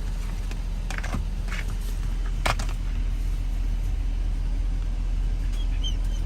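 Car engine idling with a steady low rumble, broken by a few short clicks about a second in and a sharper knock about two and a half seconds in. Faint high squeaks near the end.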